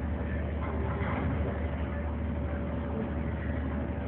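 Tour boat's engine running steadily, a constant low drone heard from inside the enclosed passenger cabin.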